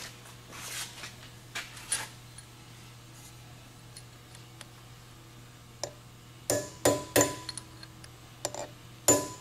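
Sharp metallic clinks and knocks on the steel ring gear of a Ford 2N differential as a loosened rivet, its head drilled off, is worked out. A few clinks come about two-thirds of the way in and the loudest comes near the end, each with a brief ring. A faint steady hum runs underneath.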